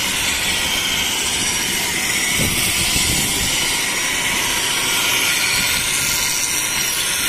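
Steel hedge-shear blade held against a spinning grinding wheel, throwing sparks: a steady, loud, hissing grind as the cutting edge is sharpened.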